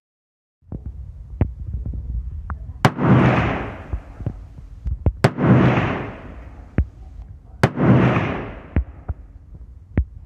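Zastava PAP M92 AK pistol in 7.62x39 with a Manticore Arms NightBrake compensator, fired in slow single shots: three loud shots about two and a half seconds apart, each trailing off in a rolling echo of about a second. Fainter sharp cracks come in between the shots.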